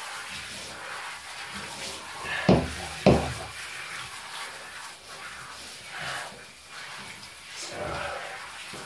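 Water from a hand-held shower running over a cat in a bathtub, with two sharp knocks about half a second apart, roughly two and a half seconds in.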